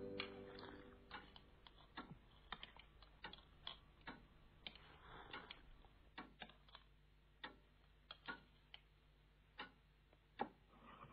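Faint, irregular clinks of cutlery on plates during a meal, coming one or two a second at uneven intervals.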